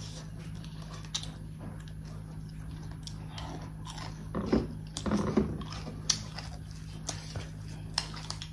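Close-up eating sounds: chewing and lip smacking with many small wet clicks as food is eaten by hand from brass plates, over a steady low hum. A couple of louder short sounds come about halfway through.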